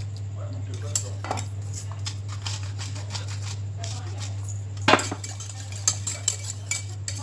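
A utensil stirring and scraping in a pan of cream sauce, with repeated small clinks against the pan and one louder knock about five seconds in, over a steady low hum.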